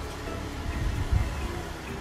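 Light melodic background music with short chime-like notes over an uneven low rumble.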